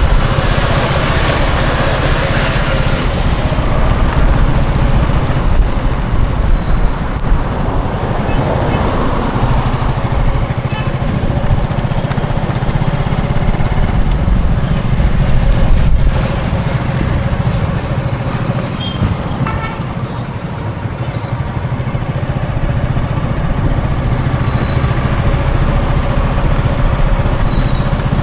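Heavy road traffic passing continuously: a steady low rumble of engines and tyres. A thin, high, steady squeal sounds over it for about the first three seconds.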